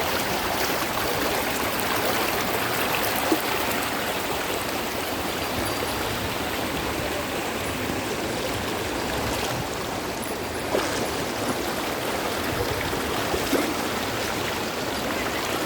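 Rain-fed stream water flowing and rushing steadily, with a few faint knocks.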